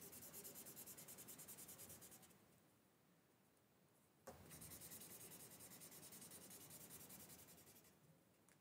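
Felt-tip marker colouring on paper in rapid back-and-forth strokes, faint. Two spells of scribbling with a pause of about two seconds between them.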